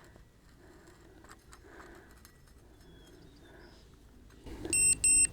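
Faint handling and clicking, then near the end a loud, high-pitched electronic tone from a level receiver (the reader of a laser transit), held with a brief break: the receiver picking up the level beam.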